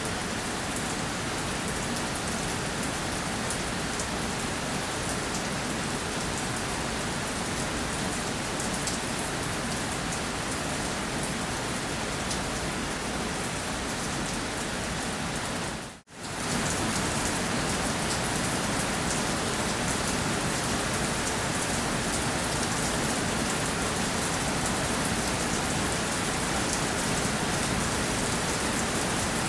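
Steady rainfall on a surface: a dense, even patter of raindrops. About halfway through it fades out for a moment and comes straight back.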